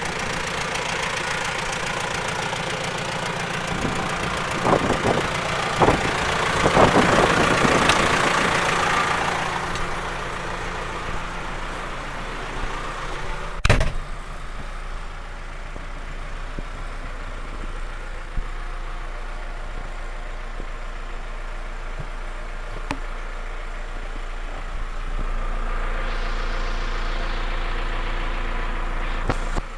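JCB 3CX backhoe loader's diesel engine running steadily. The revs rise briefly twice, once a quarter of the way through and again near the end. A few knocks come in the first seconds and one sharp bang roughly halfway through.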